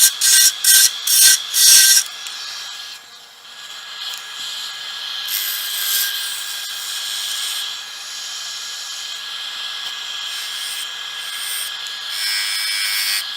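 Turning tool hollowing a spinning cedar blank on a wood lathe. About two seconds of quick scraping strokes, about three a second, give way to a steadier cut over the steady whine of the lathe.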